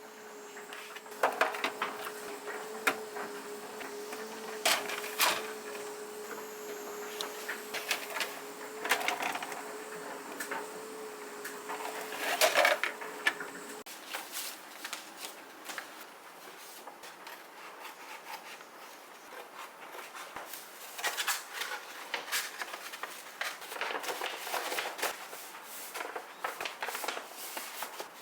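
Repeated clicks, knocks and clatter of hard objects being handled, most likely plastic fridge containers and trays being moved and set down. A steady hum runs underneath and stops about halfway through.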